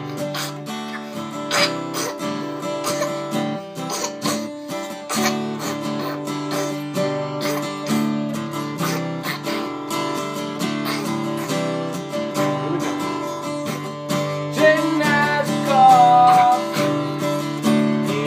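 Acoustic guitar strummed in a steady rhythm, playing the opening chords of an improvised song; a voice joins in over the guitar near the end.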